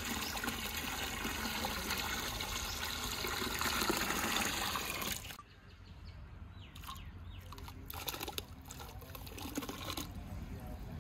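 Water pouring in a steady stream into a large aluminium cooking pot, stopping abruptly about five seconds in. After that come quieter light splashes and swishes as salt is tipped into the water and a ladle stirs it.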